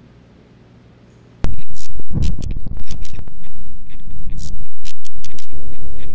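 Faint room tone, then about a second and a half in a sudden, very loud burst of harsh distorted static, scraping and stuttering clicks: a horror glitch sound effect that keeps cutting in and out.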